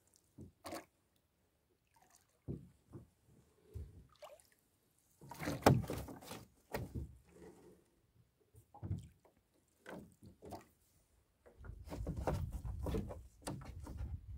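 Fishing net being hauled in by hand over the side of a small boat: wet netting rustling, water dripping and splashing, and scattered knocks. It is busiest about halfway through and in a longer stretch near the end.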